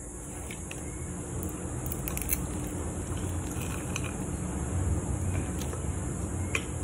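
Fork working into a fried fish fillet on a plate, with a few light clicks and scrapes of the metal fork against the plate over a low handling rumble.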